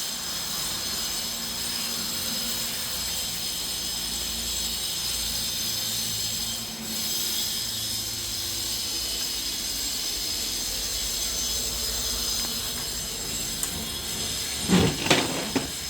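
Steady background hiss with several faint high whining tones. About a second before the end there is a brief cluster of louder, sharp sounds.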